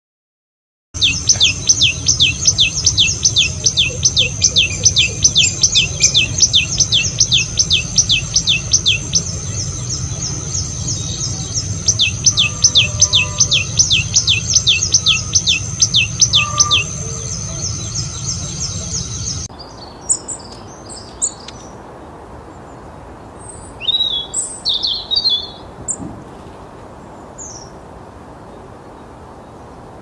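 Small songbird calling: a fast, regular run of sharp descending notes, about four a second, in two long series over a steady high tone. About two-thirds of the way through it cuts off to quieter background with a few scattered chirps.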